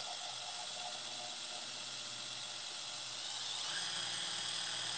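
Handheld immersion blender running steadily with a whine, blending hummus. It gets a little louder about three and a half seconds in.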